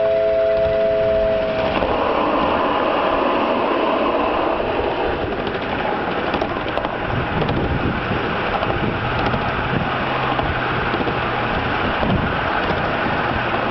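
Miniature live-steam locomotive's whistle sounding a steady three-note chord, cutting off about two seconds in. The train then runs on along the track with an even, continuous running noise.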